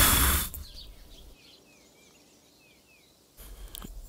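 A loud burst of noise at the start that fades away over about a second, then a run of about six faint, short, downward bird chirps in near quiet.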